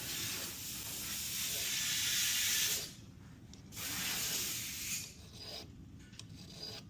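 Hand file worked over the steel hammer of a 1911 pistol, bobbing and rounding its spur by hand. There is one long stroke, a pause, a shorter stroke about four seconds in, then lighter rubbing.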